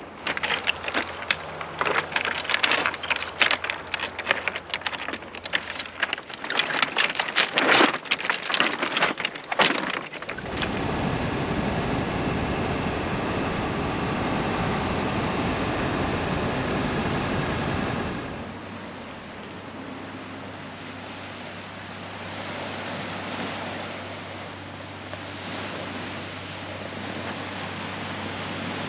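Rounded beach cobbles clacking and clattering in quick irregular knocks for about the first ten seconds, then the steady engine and road noise of a car driving, which gives way about eight seconds later to a quieter steady hiss over a low hum.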